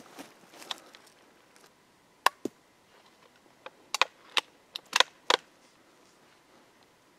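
.17 HMR rifle dry firing: a string of sharp metallic clicks, about eight in three seconds, as the trigger drops without the round going off.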